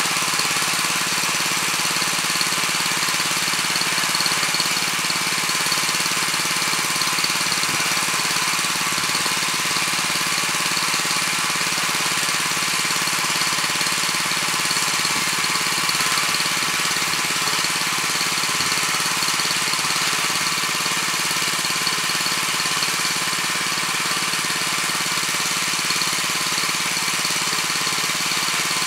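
Weima WM 900 7 hp tiller engine running steadily at a constant speed.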